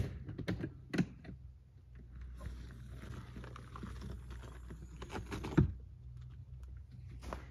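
Hardshell rooftop tent being opened by hand: two sharp clicks as it is unlatched, then a few seconds of fabric rustling as the shell lifts, and a heavy thump about five and a half seconds in as it comes up to full open.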